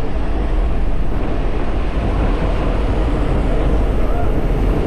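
Jump plane in flight with its door open: steady, loud engine and propeller noise mixed with the rush of wind through the open door, heard from inside the cabin.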